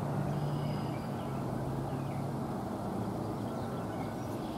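A steady low hum over a soft background hiss, with a few faint, short, high chirps from birds.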